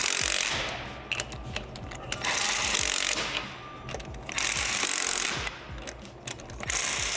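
Compact cordless impact driver with a socket extension running lug nuts onto a truck wheel, rattling in four bursts of about a second each.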